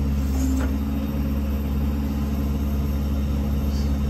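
Ford F550's 6.7 Power Stroke V8 diesel running steadily with the PTO engaged, driving the bucket truck's hydraulic pump. The sound is low and even, with no change in pitch or level.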